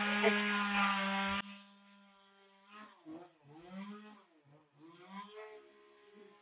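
Chainsaw running at high speed, loud and steady, that cuts off abruptly about a second and a half in; after that a much fainter chainsaw is heard revving up and down.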